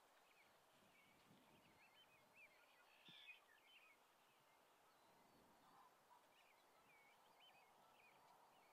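Quiet field ambience with faint songbirds chirping: many short, quick notes, with a slightly louder burst of twittering about three seconds in.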